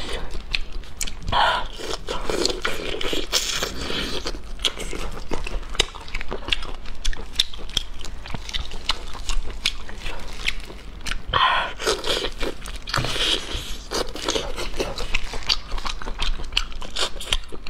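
Close-miked sounds of peeling and eating raw soy-marinated prawns: shells crunching and scraping under gloved fingers, with wet biting and chewing and many small sharp clicks throughout.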